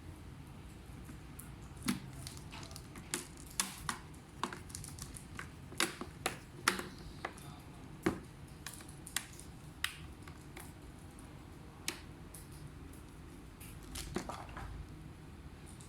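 Dell Vostro 5402 laptop being handled during repair: a string of sharp, irregular plastic clicks and taps, a dozen or more spaced unevenly, with a short scraping rustle near the end.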